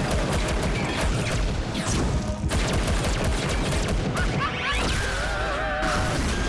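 Cartoon slapstick sound effects: a rapid, dense clatter of hits over background music, giving way about five seconds in to warbling, wavering tones.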